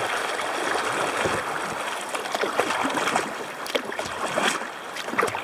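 River water rushing and gurgling around a paddled kayak on a riffle, with short splashes scattered throughout.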